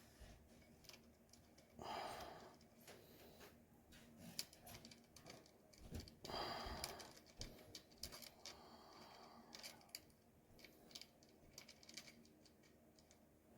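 Faint scattered clicks and taps of small metal guitar hardware being placed and handled, with two short, louder noisy sounds about two and six and a half seconds in.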